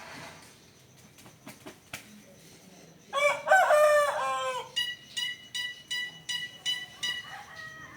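A bird gives one loud crowing call like a rooster's, about three seconds in. It follows at once with a run of about eight short, evenly spaced notes, roughly three a second.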